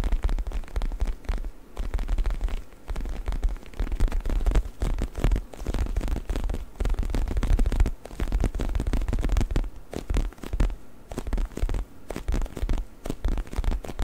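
Faux leather neck pillow squeezed and rubbed by hands right at the microphone: a dense, uneven crackling and scratching of the leather with deep handling thumps underneath, easing off briefly a few times.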